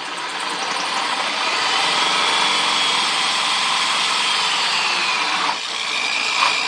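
A power tool cutting a curved hole in a plastic bucket lid. It runs steadily with a high whine that sags slightly near the end.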